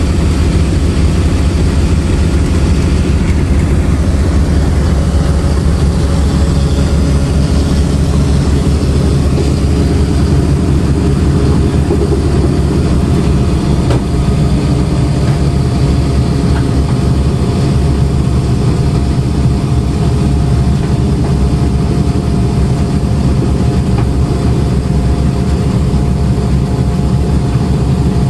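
The B-25's two Wright R-2600 twin-row radial engines running, a loud, steady drone heard from inside the fuselage.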